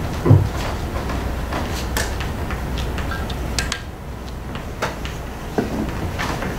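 Chalk tapping and scratching on a blackboard as matrix entries are written, a scatter of short sharp knocks. A heavier low thump comes about a third of a second in.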